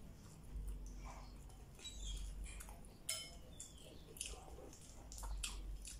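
Close, quiet eating sounds: chewing and small wet mouth sounds, with scattered clicks and squishes as fingers pick rice and smoked fish off a plate.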